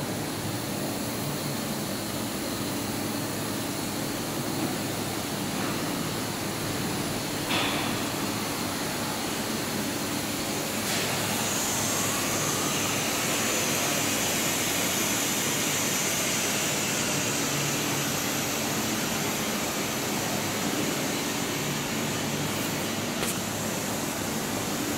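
Steady hiss and low hum of industrial fans and blowers in a bottling hall, with a few faint clicks. A brighter hiss joins about halfway through.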